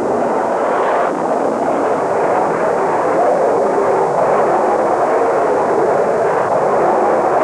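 F-4 Phantom's jet engines running at full takeoff power just after a catapult launch from an aircraft carrier: a loud, steady rushing noise.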